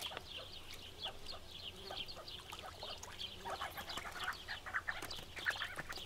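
Sandgrouse calling at a waterhole: a run of many short chirping calls that grow louder and lower-pitched in the second half.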